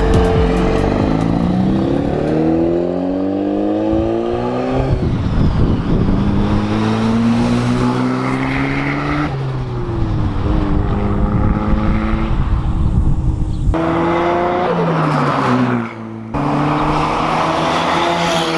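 Mazda RX-7 FC's turbocharged 13B rotary engine accelerating hard through the gears, its pitch climbing and then dropping back at each shift as the car passes. The sound breaks off abruptly twice in the second half, and each time a new run starts.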